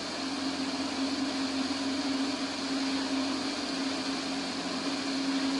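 Steady drone of a small light aircraft's engine and propeller in level flight: a constant low hum under an even hiss.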